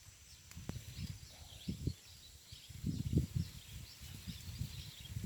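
Irregular low knocks and rustling close to the microphone, loudest about three seconds in, over faint repeated high chirping in the background.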